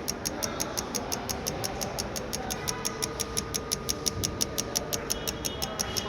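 Lexus LS 460 fuel injectors pulsing on an injector cleaning machine: fast, even clicking at about seven or eight clicks a second over a steady machine hum, as the injectors are cleaned.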